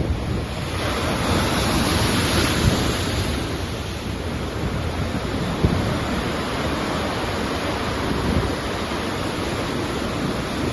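Sea waves breaking and washing on the shore, with wind rumbling on the microphone. A wave's hiss swells about a second in and slowly fades over the next few seconds.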